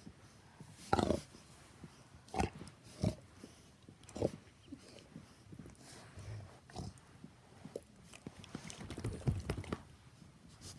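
A dog making short grunting noises, half a dozen or so with a denser run near the end, while wriggling on its back on carpet.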